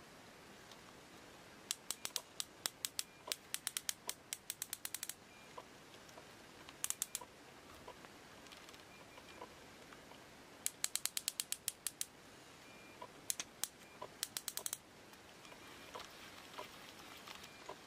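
Aftermarket drag clicker on an ABU Ambassador 4500C baitcasting reel clicking in several quick runs of sharp clicks, some speeding up, as the spool turns against the tightened drag. The clicking stays crisp with the drag tightened down.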